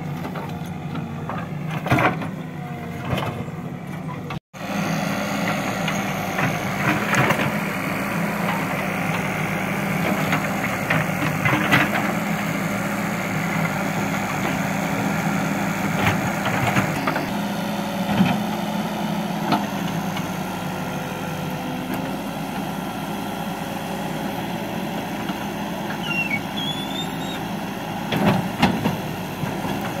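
Escorts Digmax II backhoe loader's diesel engine running steadily under working load while the backhoe bucket digs soil, with scattered short knocks. The sound cuts out for an instant about four seconds in.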